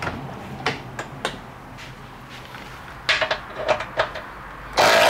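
Light knocks and clicks of a tool against the roof's metal fittings, then near the end a loud burst of about a second from a Milwaukee cordless impact ratchet spinning out a roof bolt.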